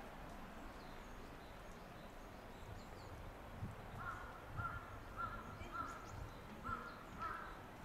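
A crow cawing six times in a quick, even series starting about halfway through, over a faint outdoor background, with a few faint small-bird chirps.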